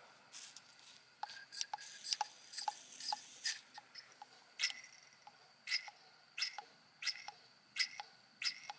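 Repeated short clicks, about one and a half to two a second, from working the primer plunger on a removed mechanical diesel fuel pump by hand. The pump doesn't seem to be doing much: the owner finds it is hardly sucking at all.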